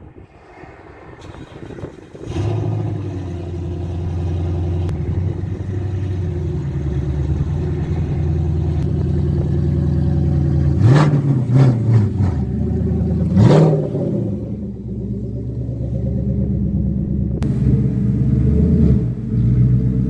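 Ford S550 Mustang's engine running steadily, blipped twice in quick succession near the middle, its pitch rising and falling each time.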